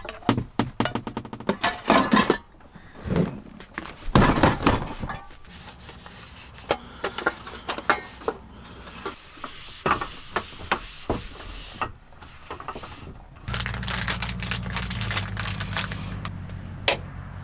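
Frying pan and camping gear being handled and stowed on a van floor: a run of knocks, clinks and rubs, loudest in the first five seconds. About thirteen seconds in, a steady low engine hum from a motor vehicle sets in and runs under the last handling noises.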